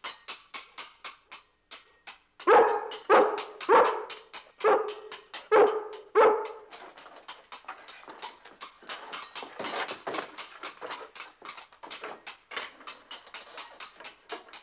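A rough collie barking loudly six times in quick succession, starting about two and a half seconds in.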